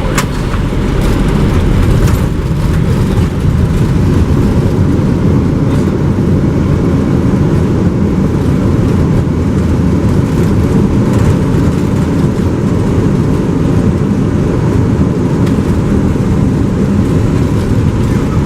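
Airbus A320 on its landing roll, heard from the cockpit: a steady, loud rumble of engines and runway. The rumble builds over the first couple of seconds after touchdown, then holds steady.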